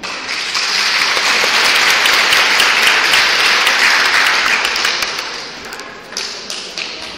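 Audience applauding, swelling to its loudest a few seconds in, then thinning to scattered single claps near the end.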